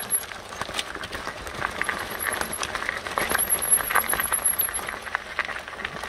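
Fat tyres of a recumbent trike crunching over a limestone gravel trail: a steady gritty crackle of stones under the wheels. A high, thin chirping trill comes and goes above it.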